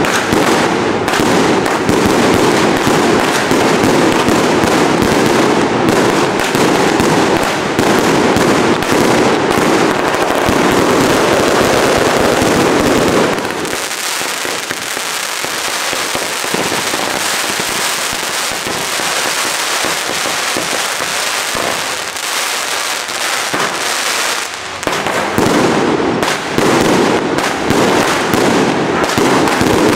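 Fireworks and firecrackers going off in a dense, continuous crackle of rapid bangs. About halfway through it thins out and drops in level, then builds back up near the end.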